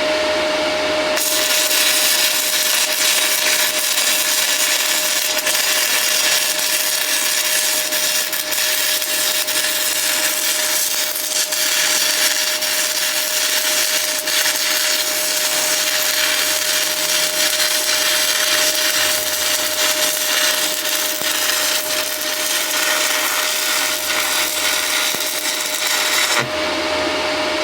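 Stick-welding arc from a 6010 electrode crackling steadily during a root pass. It strikes about a second in and burns for roughly 25 seconds, then goes out near the end as the rod is used up.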